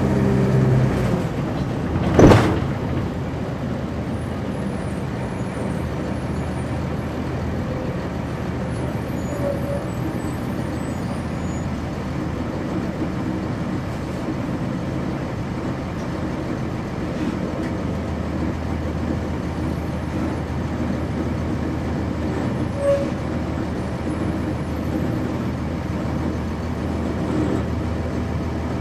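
Cabin sound of a 1999 NovaBus RTS transit bus with a Cummins ISC diesel. The engine note eases off about a second in, and a single sharp bang comes about two seconds in. Then there is steady road and cabin noise, with the low engine note building again in the second half.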